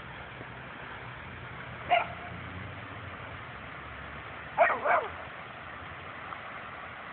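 American Staffordshire terrier giving short, high barks at ducks: one about two seconds in, then two in quick succession near the five-second mark as it lunges toward them.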